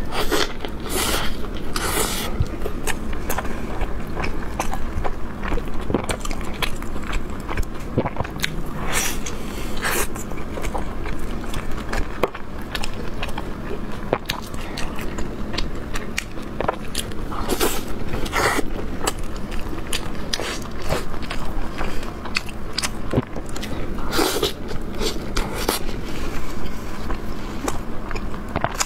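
Biting and chewing of an Old Beijing sesame flatbread (shaobing) stuffed with meat. Louder bites come every several seconds over steady chewing.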